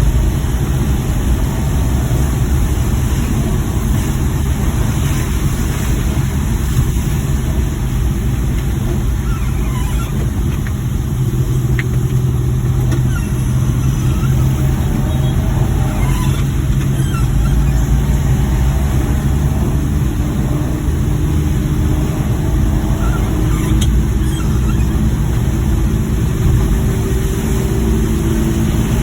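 A Suzuki Multicab FB van driving: a continuous low engine and road rumble, with the engine note shifting up and down now and then.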